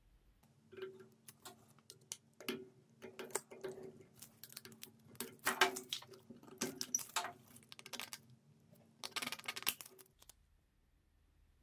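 Irregular light metallic clicks and scrapes of a steel snap ring being worked over a hammer drill's shaft by hand and with a tool, the loudest click a little past halfway; the sounds stop about a second and a half before the end.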